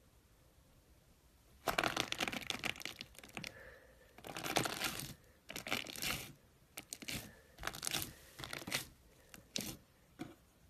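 Slime being squeezed and stretched by hand, giving a run of crackling, popping bursts that starts nearly two seconds in.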